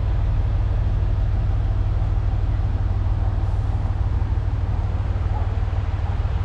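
Liebherr mobile crane's diesel engine running steadily, a deep even rumble.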